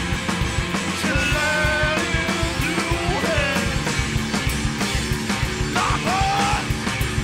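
Rock band playing: electric guitars and a drum kit in a steady beat, with a male lead voice singing held notes over them.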